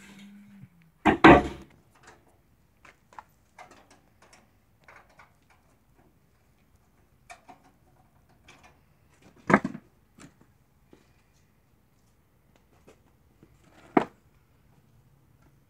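Scattered knocks and clatters, with three louder single thumps: one about a second in, one past the middle and one near the end.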